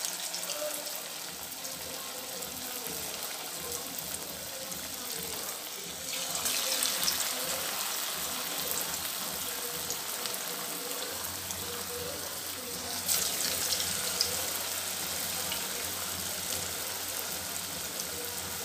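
Thekua dough cakes deep-frying in hot refined oil in a kadai: a steady sizzle and bubbling that grows louder about six seconds in and again around thirteen seconds, as further pieces go into the oil.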